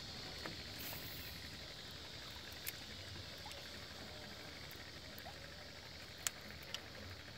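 Faint steady outdoor background hiss, broken by three small sharp clicks: one about three seconds in and two close together near the end.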